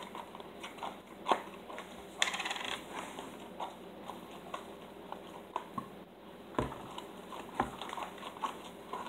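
Slime mixture of glue and borax being stirred and scraped in a bowl: irregular clicks and taps of the mixing utensil, with a short scraping burst about two seconds in.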